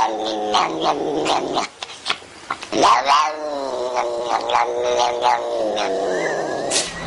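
Tortoiseshell cat yowling with its mouth wide open while being brushed: a run of long, wavering caterwauls, with a short quiet gap about two seconds in before a long drawn-out cry.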